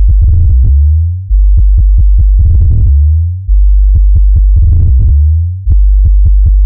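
Electronic bass-test music: very loud, deep synth bass notes, each held and then fading, with a new one hitting about every two seconds and short clicky percussion hits over the top.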